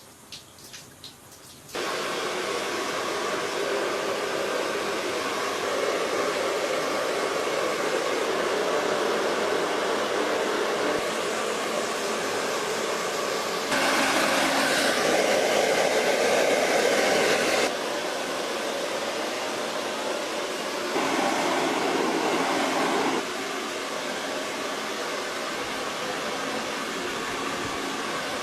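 A steady rushing, blower-like noise. It starts abruptly about two seconds in and jumps up and down in level several times, loudest for a few seconds around the middle.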